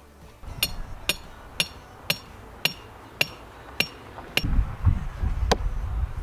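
Hammer driving tent stakes: about nine sharp, ringing blows, roughly two a second, slowing a little near the end. A low rumble joins about four seconds in.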